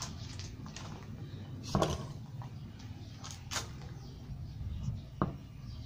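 A few short clicks and knocks, spaced a second or so apart, over a faint low background hum.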